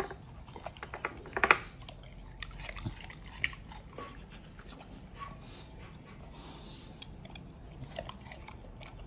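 American Bully dog biting and crunching food from a stainless steel bowl: a run of sharp crunches about a second and a half in, fewer bites through the middle, more near the end.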